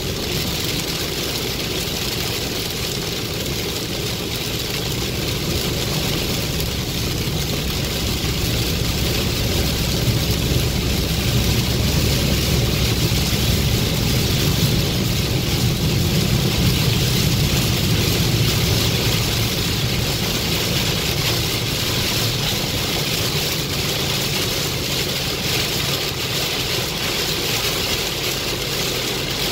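Heavy rain drumming on a car's roof and windshield, heard from inside the cabin over the low rumble of the car's engine and tyres on the wet road. It is a steady hiss that swells a little in the middle.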